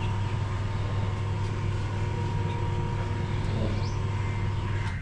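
Steady low mechanical hum that does not vary, with one short bird chirp about three and a half seconds in.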